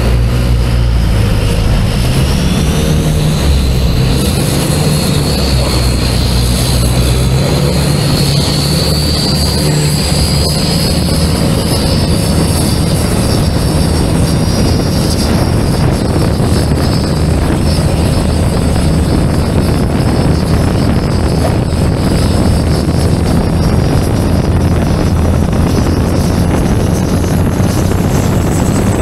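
Heavily tuned turbocharged Isuzu 4JJ four-cylinder diesel of a longtail boat running hard at speed. Its pitch climbs slowly over roughly the first dozen seconds and then holds steady, over the rush of spray and wind.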